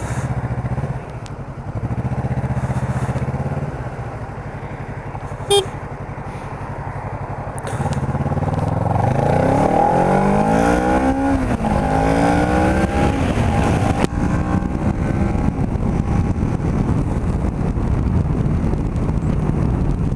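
Kawasaki Ninja 650R parallel-twin engine running at low, steady revs, then about eight seconds in accelerating hard: the pitch climbs, drops at an upshift, and climbs again before settling into loud steady running at speed. A short beep sounds about five and a half seconds in.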